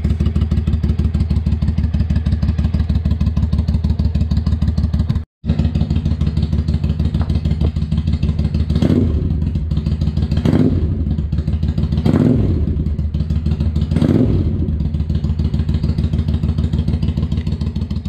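Triumph Speedmaster 865 parallel-twin idling through Emgo shorty tapered exhaust pipes, with four quick throttle blips in the second half, each rising and settling back to idle. The sound cuts out briefly about five seconds in.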